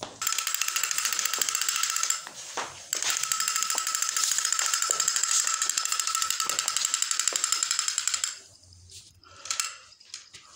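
A loud, rapid, high-pitched rattling buzz, like fast mechanical ticking. It breaks off briefly about two seconds in, then runs on and stops about eight seconds in.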